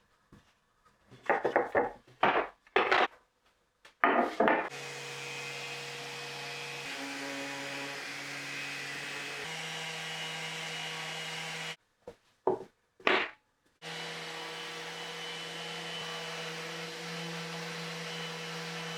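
Wood being rubbed or sawn by hand in several quick strokes. Then a woodworking machine starts up and runs steadily with a low hum. It stops briefly about twelve seconds in for two more hand strokes, then runs again.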